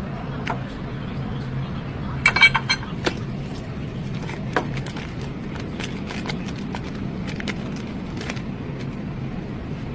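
A quick cluster of sharp metallic clinks about two seconds in, then scattered lighter ticks, over a steady low hum.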